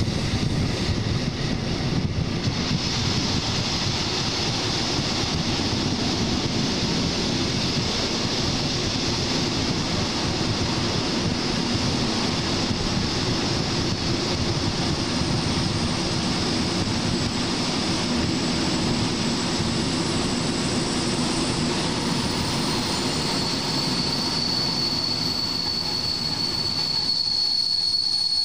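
Passenger train running along the track, heard through an open carriage window as a steady rush of wheel and wind noise. About three-quarters of the way in, a thin, steady high-pitched wheel squeal sets in as the train runs into a station and the low rumble eases off near the end.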